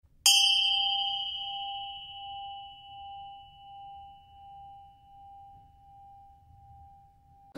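A singing bowl struck once, ringing in a long fading tone that swells and dips slowly, about once every three-quarters of a second, as it dies away.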